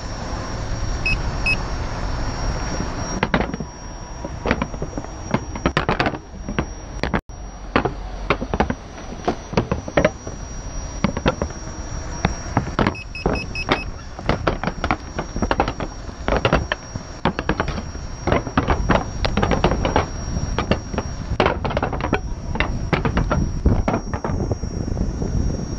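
Riding noise from a Gotway MCM4 electric unicycle, picked up by a camera mounted close to its wheel: a steady rush of wind with many irregular clicks and knocks as the wheel rolls over the joints of paving slabs, and a faint high steady whine.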